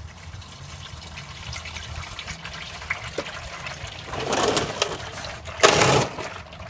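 Used diesel engine oil draining from the oil pan in a thin steady stream and splashing into a plastic drain pan during an oil change. Two louder bursts of noise come about four and five and a half seconds in, the second the loudest.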